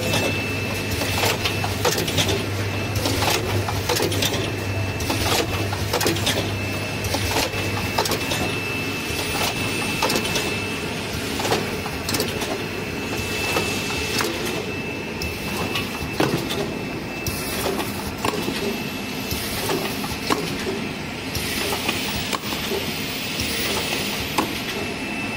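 Coffee capsule filling and sealing machine running, with a busy, irregular clatter of clicks and knocks from its moving parts. A thin, steady high-pitched whine runs under it and drops out at times, and a low hum sits beneath it during the first eight seconds or so.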